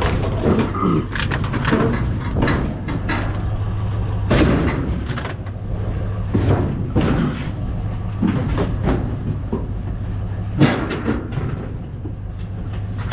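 Knocks, clanks and scrapes of heavy scrap and appliances being moved and set down, the loudest about four and ten and a half seconds in, over a steady low hum of an idling truck engine.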